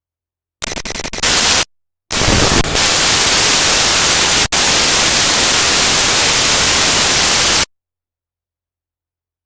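Raw computer data played back as audio: harsh static in blocks cut by dead digital silence. A short, rougher burst comes about half a second in, then a loud steady hiss from about two seconds in, broken by a split-second dropout near the middle, which stops abruptly about two seconds before the end.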